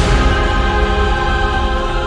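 Orchestral music: held chords over a deep, steady bass.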